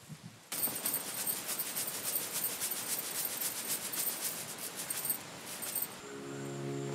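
Dry powdered earth poured from a wicker basket onto a stone floor: a dense hissing patter of falling grains and lumps. It cuts off abruptly about six seconds in, and music starts near the end.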